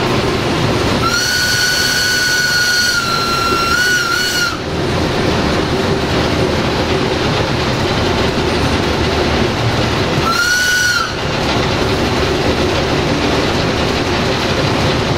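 Cab of an Electroputere 060-DA (LDE2100) diesel-electric locomotive under way, its Sulzer 12LDA28 diesel engine and wheels on the rails making a steady running noise. The locomotive's horn sounds one long blast of about three and a half seconds, starting about a second in and wavering at the end, then a short blast about ten seconds in.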